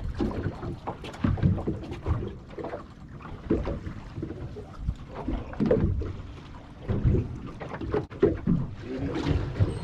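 Waves slapping and knocking irregularly against the hull of a Parker 2320 cabin boat on the water.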